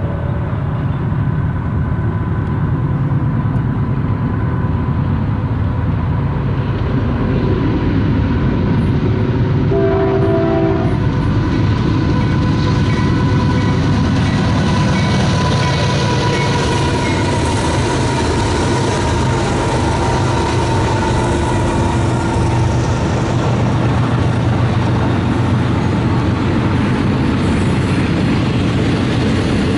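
Union Pacific freight train passing close by: several diesel locomotives running under power, a short horn blast about ten seconds in, then the wheels of the double-stack container cars rolling past.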